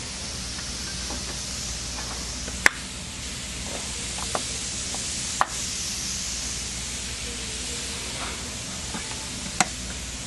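Plastic push-button panel clips snapping in as their buttons are pressed, expanding the anchors that hold a fender flare to the body plastic: three sharp clicks with a few fainter ones between, over a steady hiss.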